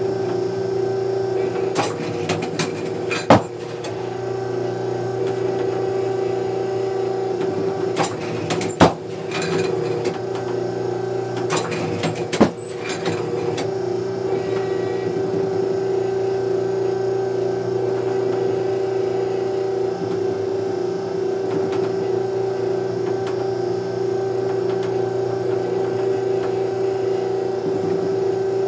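Automatic oscillating trap machine for clay targets humming steadily, with three sharp loud snaps about 3, 9 and 12 seconds in as it throws, each with lighter mechanical clicks close around it.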